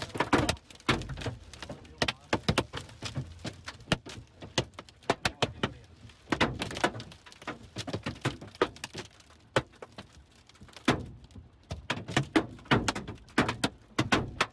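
Hailstones striking a car's windshield and body, heard from inside the cabin as a rapid, irregular run of hard knocks, several a second, hard enough to crack the windshield glass.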